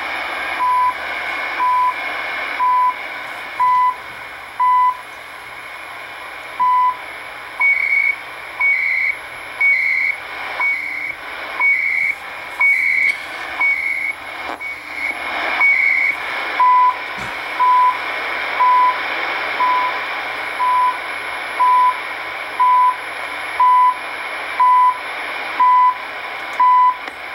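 CHU time signal station on 7850 kHz shortwave, heard in AM over steady static. A 1 kHz beep sounds once a second, with one beep missing about six seconds in. Then for about nine seconds each second brings a short chirping burst of 300-baud time-code data in place of the beep, before the once-a-second beeps resume.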